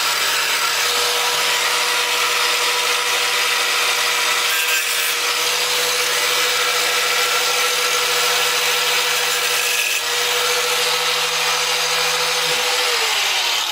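A 4.5-inch electric angle grinder cutting through 1/4-inch mild steel bar: a loud, harsh hiss over the motor's steady whine. About 13 seconds in it is switched off and the whine drops in pitch as the disc winds down.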